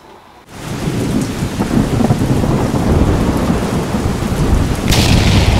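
Thunderstorm sound effect: a heavy rain hiss under continuous rolling thunder. It comes in suddenly about half a second in, with a brighter crack of hiss near the end.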